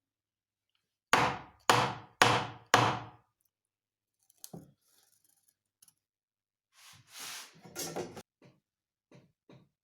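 Four loud hammer blows about half a second apart, then a few lighter knocks and a brief shuffling of wood near the end.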